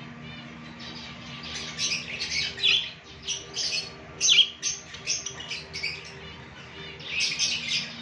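Budgerigars chirping and chattering in quick runs of short, high calls, busiest from about two seconds in through the middle and again near the end, over a faint steady hum.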